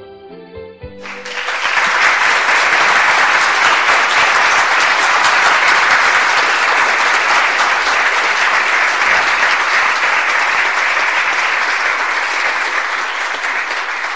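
The fading last notes of a song, then a crowd applauding loudly and steadily from about a second in, easing slightly near the end.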